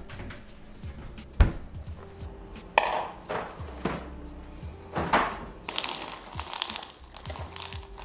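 Cardboard cereal box and its plastic liner bag being handled, a series of crinkling rustles, after a single sharp knock about a second and a half in. Soft background music plays underneath.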